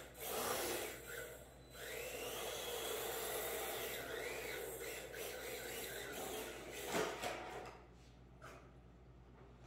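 RC drift car (Sakura D4) sliding across smooth concrete. Its hard drift tyres scrub over the floor while its electric motor whines, rising and falling in pitch, with a short knock about seven seconds in. The sound fades near the end.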